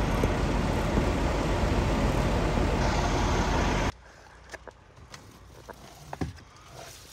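Steady road and wind noise from a vehicle towing a car-hauler trailer at highway speed. It cuts off abruptly about four seconds in, leaving near-quiet with a few faint clicks.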